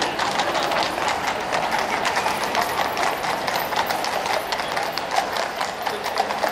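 Clip-clop of several police horses' shod hooves on the tarmac road as a mounted column walks past, many irregular overlapping hoof strikes.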